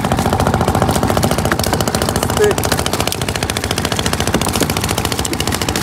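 Boat engine running steadily with a rapid, even chugging beat.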